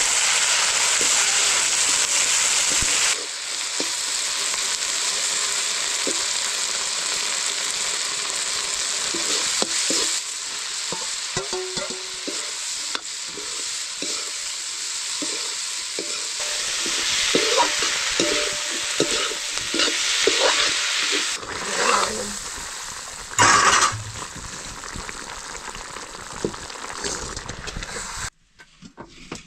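Food sizzling as it fries in hot oil in a pan, with a spoon repeatedly scraping and knocking against the pan as it is stirred. The sizzle drops in level about three seconds in and stops shortly before the end.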